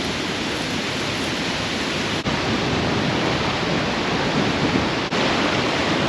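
Steady rushing outdoor noise of wind and moving water, broken by two very brief drop-outs about two and five seconds in.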